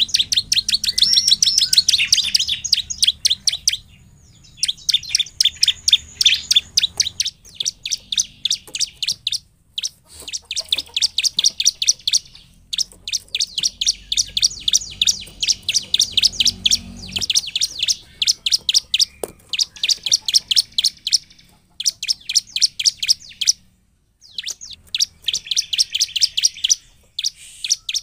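Bar-winged prinia (ciblek) singing: long runs of rapid, sharp, evenly repeated chirps, in phrases of a few seconds with short pauses between them.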